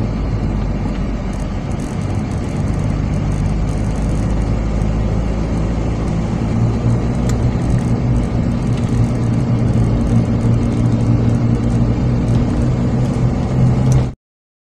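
Car driving on a paved road: steady engine and tyre noise that cuts off suddenly near the end.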